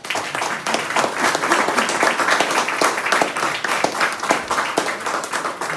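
A small group applauding. The clapping starts all at once and thins out slowly near the end.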